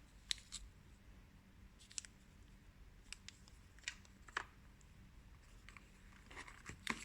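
Scattered faint clicks and light rustles of small phone accessories and their packaging being handled, with a quick cluster near the end.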